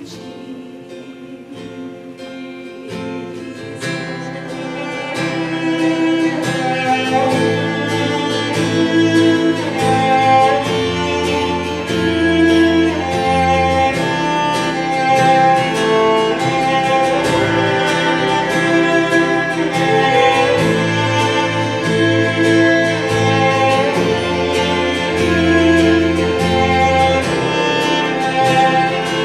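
Live worship band playing slow instrumental music: electric bass and guitar under sustained string-like tones carrying a melody. It swells in loudness over the first few seconds as the bass comes in.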